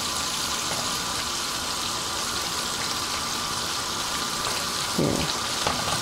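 Flour-coated chicken pieces deep-frying in hot oil on a high flame, a steady sizzle, with a brief scrape of a spatula in the pan about five seconds in.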